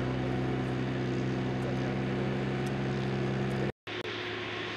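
Asphalt paver's diesel engine running steadily with a low, even hum. A little over three and a half seconds in, the sound cuts out abruptly for an instant and comes back as a fainter engine hum with more hiss.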